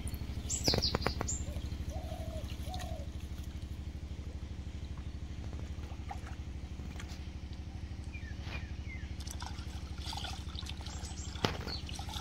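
Shallow water sloshing and trickling as small fish are scooped out of a netted pool with a plastic basket, with a sharp splash near the end. Bird chirps come in about a second in and again later, over a steady low machine hum.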